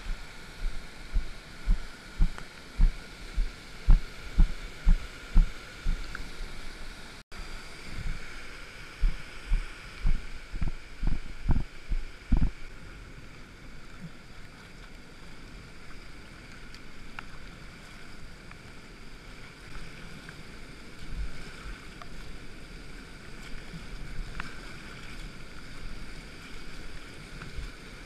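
River water rushing steadily over and below a weir, heard from a kayak at the weir, with a run of dull low knocks about two a second during the first twelve seconds or so.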